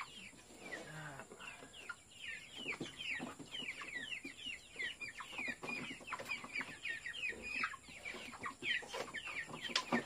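Flock of young white broiler chickens peeping continuously, many short falling chirps a second, with one sharp knock near the end.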